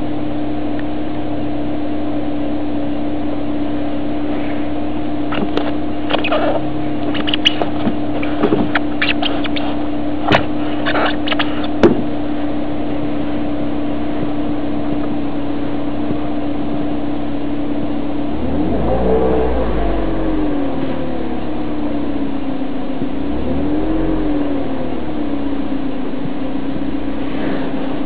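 Car engine idling steadily, with a run of sharp clicks a few seconds in. Past the middle the engine is revved twice, its pitch rising and falling each time; the second rev is shorter and smaller.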